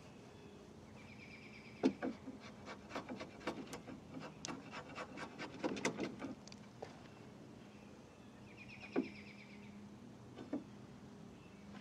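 Hand chisel paring and scraping the end of a timber rafter: a quick run of sharp, irregular cuts and scrapes in the middle, then a couple of single cuts near the end. A short high trill, likely a bird, comes twice.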